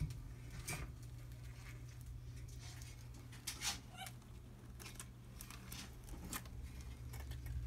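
Irregular scratches and sharp clicks of a Savannah monitor's claws scrabbling against a plastic tub's side, over a steady low hum.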